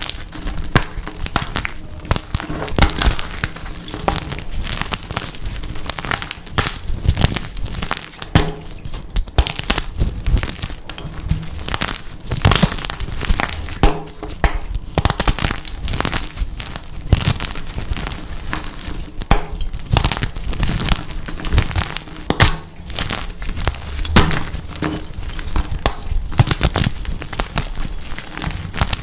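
Blocks of dyed gym chalk being crushed and crumbled by hand, a dense run of irregular crunches and crackles.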